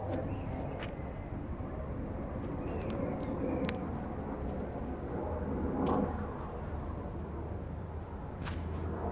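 A steady low hum of outdoor background noise, with a few faint clicks and a brief swell about six seconds in.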